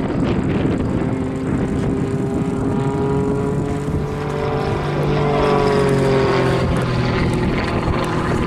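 Grob 115E Tutor's 180 hp Lycoming four-cylinder piston engine and propeller droning through a rolling aerobatic sequence. The engine's pitch slides up and down about halfway through as the aircraft rolls and changes direction.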